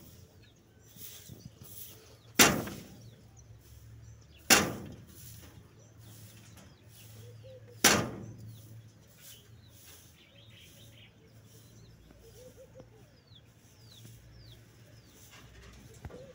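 Three loud, sharp bangs, about two, four and a half and eight seconds in, each dying away quickly, with faint bird chirps in the background between them.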